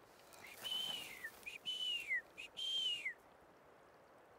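A person whistling three short notes, each with a brief lead-in, held high and then sliding down, with an audible breathy hiss.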